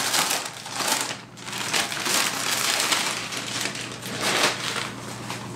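Clear plastic polybag crinkling and rustling in uneven surges as a nylon sling bag is pulled out of it and unwrapped.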